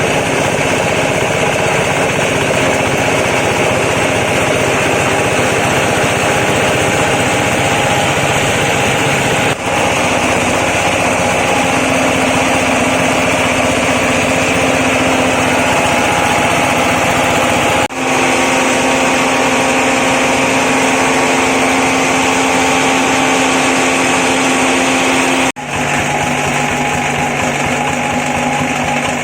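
A feather and corn cob flour mill running steadily with a loud mechanical drone. The sound breaks off briefly three times, and each time it comes back with a slightly different pitch.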